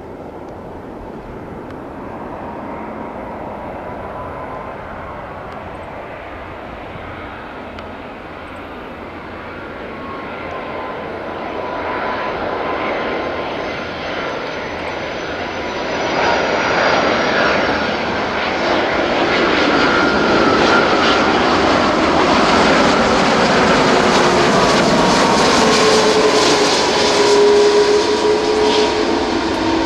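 Airbus A330-300 twin-jet on final approach, its engine whine and rumble growing steadily louder as it nears. Near the end its engine tones fall in pitch as it passes.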